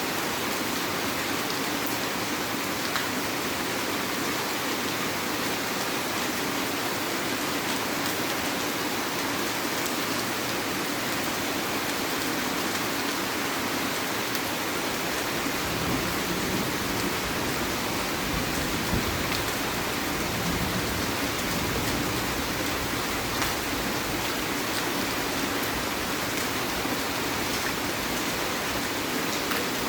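Heavy rain falling steadily. From about halfway through, a low rumble joins underneath the rain.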